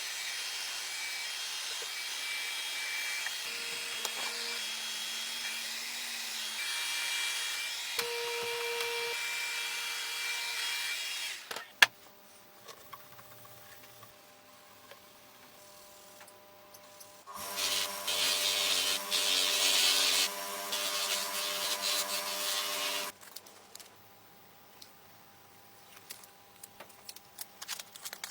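A power tool runs steadily for about eleven seconds and stops, followed by a sharp click. A few seconds later a power tool runs again, louder, for about five seconds; small clicks and handling sounds follow.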